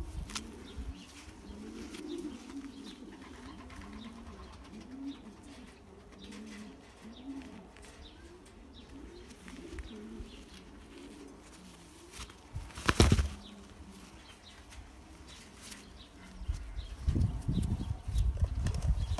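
Domestic racing pigeons cooing, a string of low rolling coos repeating through the first half. About two-thirds of the way in comes one brief loud flutter, and near the end loud low rumbling bumps take over.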